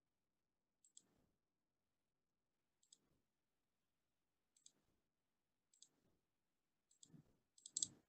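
Faint, sharp clicks over near silence, about six of them spaced one to two seconds apart, with a closer pair near the end that is a little louder.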